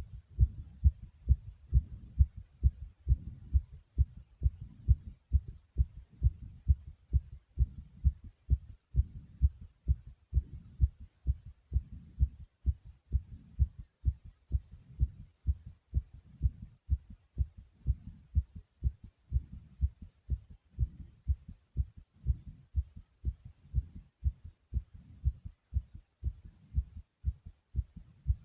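Human heartbeat beating fast after exercise: a quick, even run of low thumps.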